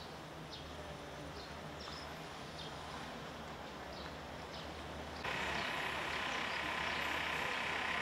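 Outdoor ambience with birds chirping briefly now and then over a low steady hum. About five seconds in, a louder steady hissing drone starts suddenly.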